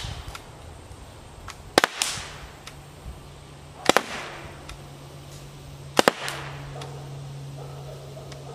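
Umarex TR50 .50 caliber CO2 revolver firing Devastator rounds, one shot about every two seconds: three sharp double cracks, then a fourth at the very end. The shooter suspects the CO2 is running low and the shots are getting weaker.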